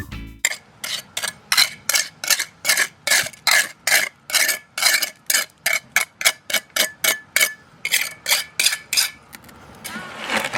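A hand tool scraping and working wet concrete in quick rhythmic strokes, about three a second, stopping about nine seconds in.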